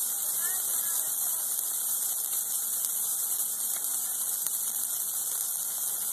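A Christmas tree burning in an open fire: a steady high hiss from the flames, with a couple of faint pops.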